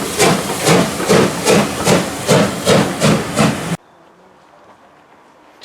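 Steam locomotive working under steam, its exhaust beating in a steady rhythm of about two and a half chuffs a second. The chuffs cut off suddenly just under four seconds in, leaving only faint background.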